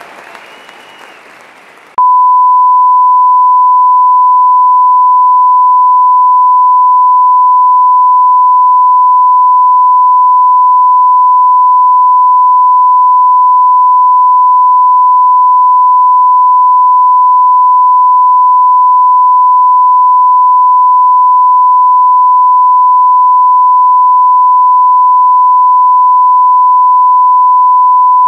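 Faint applause fading for about two seconds, then an abrupt switch to a loud, steady broadcast test tone at a single pitch: the reference tone that runs with colour bars once a station has gone off the air.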